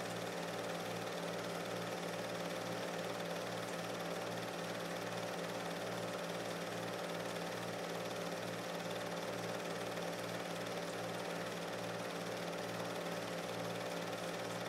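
Film projector running steadily: an even motor hum with hiss and a low pulsing that repeats a few times a second.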